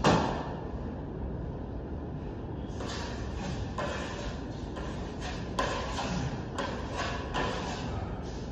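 A single thump with a brief ring at the start, over a steady low background rumble. From about three seconds in, a run of short scraping strokes, a few a second, as a trowel works Venetian plaster on the ceiling.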